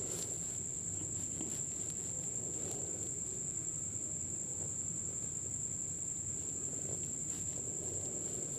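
A steady high-pitched whine, with faint scrapes of a slotted steel spoon stirring vegetables in a kadai.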